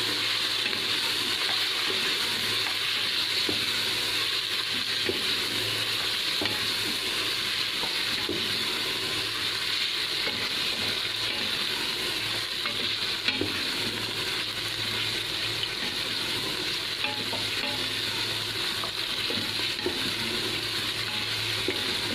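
Mutton pieces sizzling steadily in hot ghee in an aluminium pressure cooker, stirred with a wooden spoon that scrapes and knocks lightly against the pot now and then. The meat is being seared until it changes colour.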